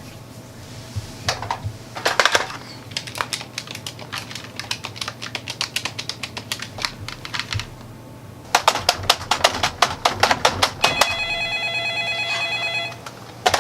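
Typing in two bursts of quick key clicks, the second faster and denser. Near the end a phone's electronic ringtone sounds for about two seconds.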